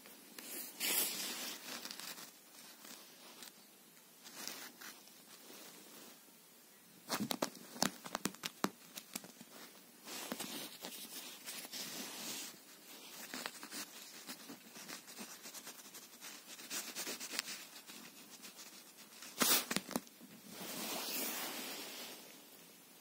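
Rustling and scraping of a cloth bedspread as a fabric toy mouse is dragged over it, coming in bursts. A quick cluster of clicks and knocks comes about seven to nine seconds in, and a sharper pair, the loudest moment, about nineteen and a half seconds in.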